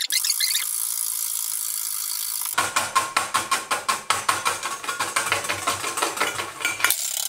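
Wire balloon whisk beating egg whites in a stainless steel bowl: after a steady hiss, quick regular clattering strokes of the wire against the metal, about six a second, start a little under three seconds in and stop shortly before the end. The whites are being whipped toward stiff peaks while sugar is added.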